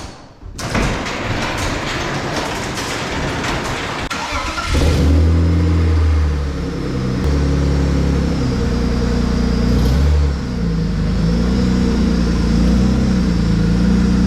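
BMW E36 318ti engine, first a rough noisy stretch as it turns over, then running loudly from about five seconds in, its pitch shifting up and down with the revs.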